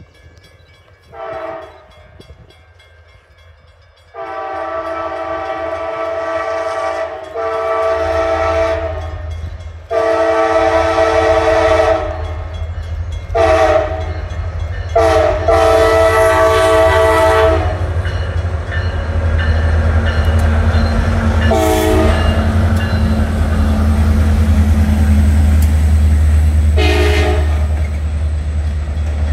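Diesel locomotive's multi-chime air horn blowing for a grade crossing: a short toot, then a run of long blasts with a short one among them, and two more short toots later. A low rumble of the passing train builds through the sequence and is loudest as the passenger cars roll by over the crossing.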